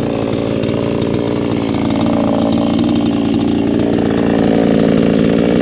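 Chainsaw running at speed, its pitch sagging for a second or two in the middle and then picking back up, as it does under load while cutting wood.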